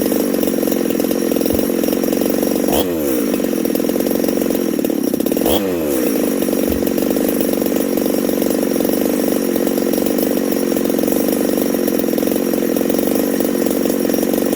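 Freshly built Husqvarna 372XP two-stroke chainsaw engine running steadily, without bar and chain fitted, on its first runs before fine tuning. Its engine speed sags briefly twice, about three seconds in and again about five and a half seconds in.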